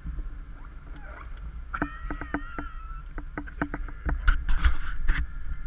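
Water splashing and lapping around an inflatable raft in a shallow riffle, with wind rumbling on the camera's microphone. About two seconds in comes a quick run of clicks and squeaks, and louder splashes follow near the end.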